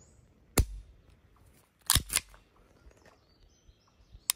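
Kimber Rapide 1911-style 10mm pistol being dry-fired: short, sharp metallic clicks of the trigger breaking and the hammer falling and resetting, one about half a second in, a quick double click around two seconds, and another near the end. The trigger is light, about 6 pounds, with a smooth reset.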